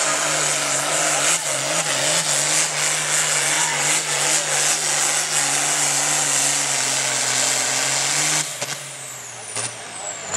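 Diesel engine of an International Harvester altered farm stock pulling tractor running flat out under load as it drags the weight-transfer sled, loud and steady. About eight and a half seconds in, the throttle cuts and the engine drops away, leaving a high whistle that falls in pitch as it winds down.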